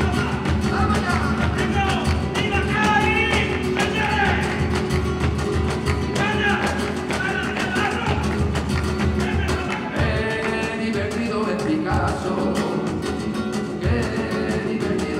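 Live flamenco music: nylon-string flamenco guitar played with a cajón beat, and a male singer's wavering melody over them.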